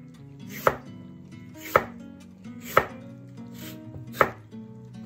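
Chef's knife slicing a raw, unpeeled lotus root into thin rounds about 2 mm thick on a cutting board: four sharp cuts through to the board, about one a second.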